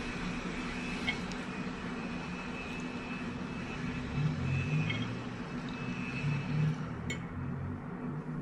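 Steady background hum, with a few light clicks of a metal fork against a ceramic plate as the last food is scraped up, and soft low thumps around the middle.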